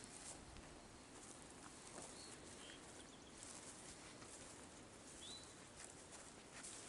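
Faint outdoor quiet with soft footsteps in a grassy field and a few short, high bird chirps, two a little after two seconds in and a rising one just past five seconds.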